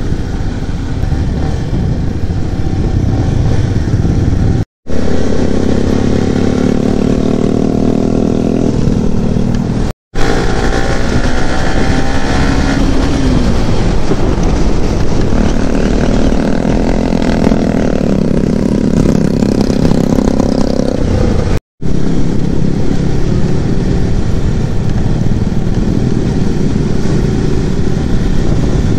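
Yamaha sport motorcycle's engine running at riding speed, its pitch rising and falling as the throttle changes, over a steady rush of wind and road noise. The sound drops out briefly three times at edit cuts.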